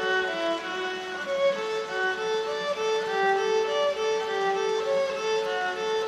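Solo violin played with the bow: a melody of separate notes, each about half a second long, mostly in the instrument's middle register, played inside a concrete tunnel.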